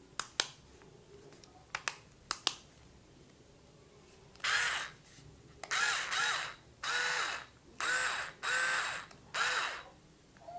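A few light clicks, then the motor of a Black & Decker A7073 6V battery screwdriver runs in six short bursts about half a second long, each spinning up and down in pitch as it is switched on and off.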